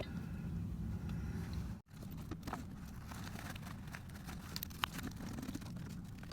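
Faint small clicks and knocks of hands and tools working under the bus, over a low steady background hum. The sound drops out completely for a moment about two seconds in.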